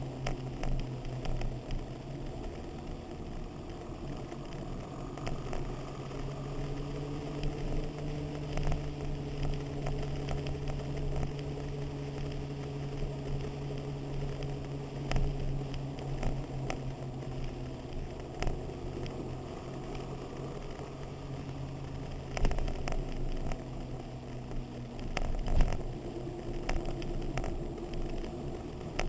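Motorcycle engine running at a steady cruising speed, its note stepping slightly up and down a few times, with wind crackle on the microphone and a couple of louder thumps near the end.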